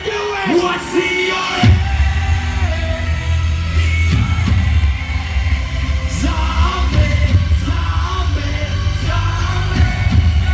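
Loud live pop-dance music over a festival sound system, with a sung vocal line. The deep bass is absent at first and kicks back in strongly about a second and a half in.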